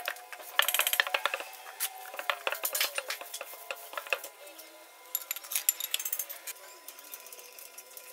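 Bursts of sharp metallic clinks and scrapes from a wheel loader's heavy steel wheel rim being shoved and levered onto the hub. The clinks come in clusters about a second in, around three seconds and near six seconds.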